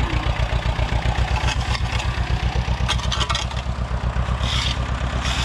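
Tractor diesel engine running with a steady low throb, with a few metallic clatters and scrapes during the work of clearing manure from the pens.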